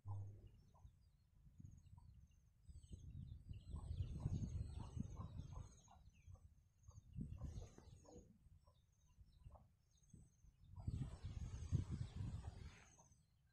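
Chickens clucking softly here and there, with a high repeated chirping above. A low rumble on the microphone swells twice, about four and twelve seconds in, and is the loudest sound.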